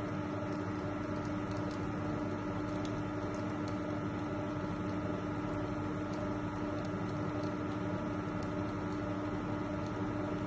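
Franke A800 bean-to-cup coffee machine running steadily through a cappuccino cycle with an even, pitched motor hum, grinding and brewing the espresso; the milk system is not drawing milk.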